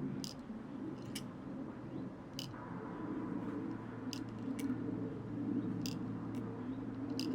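Several short, sharp clicks spaced about a second apart, from handling an airgun's metal magazine while loading BBs into it, over a steady low hum.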